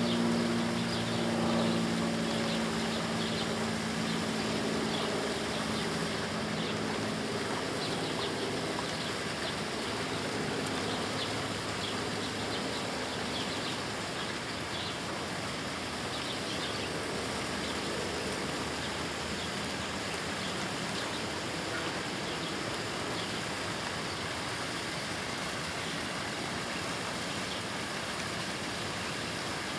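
A Malayan tapir chewing plant stalks, heard as faint crunching ticks through the first half, over a steady rushing noise like running water. A low hum fades out over the first several seconds.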